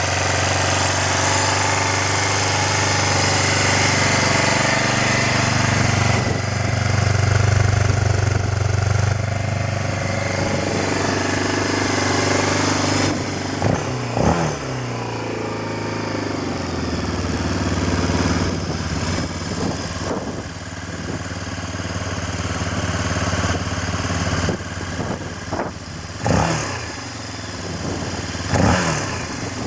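1994 BMW F650 Funduro's single-cylinder engine running at a fast idle, revs held up for several seconds and then dropping back to a steady idle. Short throttle blips come about halfway through and twice near the end.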